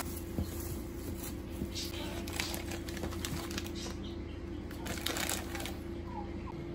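Plastic-wrapped scones being handled and packed into a zip-top plastic freezer bag: scattered crinkling and rustling of plastic film and bag, over a faint steady low hum.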